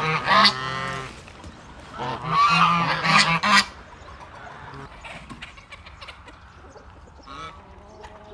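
Flock of domestic geese honking: two loud bouts of calls in the first four seconds, then only faint, scattered honks.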